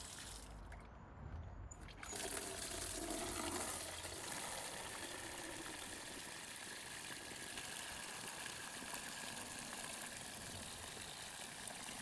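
Water from a garden hosepipe with Hozelock AquaStop connectors pouring into a plastic bucket, a steady splashing fill at about 11 litres a minute. The stream becomes steady about two seconds in.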